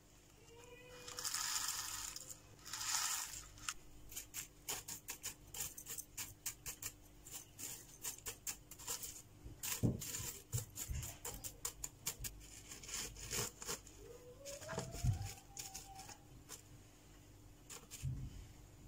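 Small grit pebbles poured from a plastic tub into a cactus pot in two short rattling runs, then many small clicks as the grit is pushed and tapped into place around the cactus with a thin stick.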